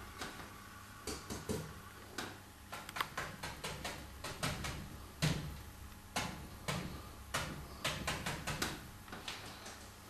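Bristle brush dabbing oil paint onto a stretched canvas: irregular soft taps, several a second, as tree foliage is stippled on.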